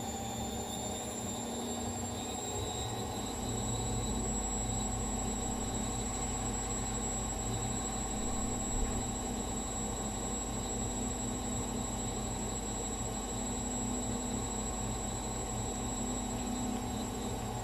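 Gorenje washing machine spinning: a steady motor whine over the rumble of the turning drum, with a deeper rumble coming in about three seconds in.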